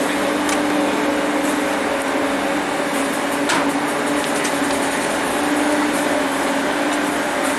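Steady machine hum with a constant low drone, with a few faint clicks and one sharper click about three and a half seconds in.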